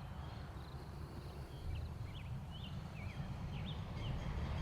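Birds chirping faintly: a scatter of short, quick chirps in the middle, over a steady low background rumble.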